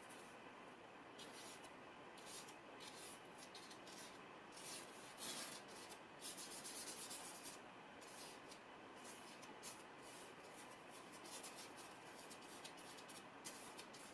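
Faint scratching of a stiff hog-bristle brush dragged across oil-painting paper in short strokes, laying in a thin sketch in diluted oil paint. The strokes come in quick runs, busiest around the middle.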